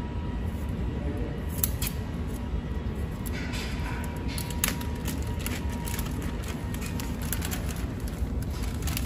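Clear plastic packaging film crinkling and rustling in scattered short bursts as the roll is handled and the film is pulled over the packing machine's rollers, over a steady low hum.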